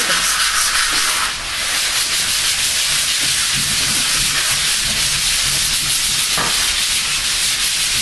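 Sandpaper rubbed by hand over wooden painting panels, a steady scratchy hiss of continuous strokes. It dips briefly about a second and a half in, and there is a single sharp click about six and a half seconds in.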